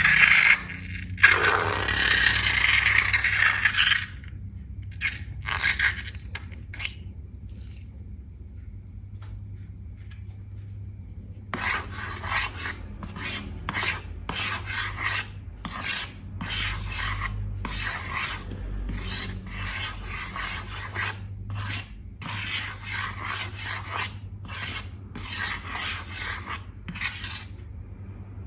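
Hands working slime: a few seconds of loud continuous rubbing, then a quieter stretch with occasional strokes, then from about twelve seconds in a steady run of rubbing, pressing strokes, about two a second.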